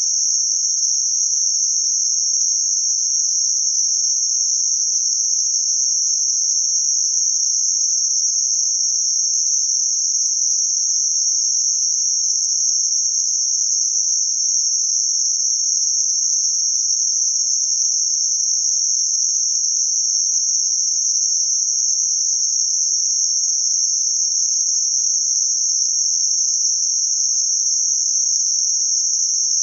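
Synthetic noise band-limited around 6051 Hz: a steady, high-pitched hiss that never changes.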